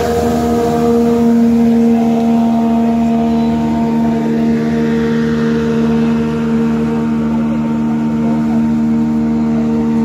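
Rescue motorboat's engine running at a steady pitch as the boat goes by on the river.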